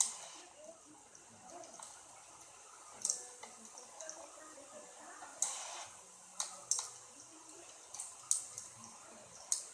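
Wood fire crackling: sharp pops come at irregular moments, roughly once a second, over a faint steady hiss.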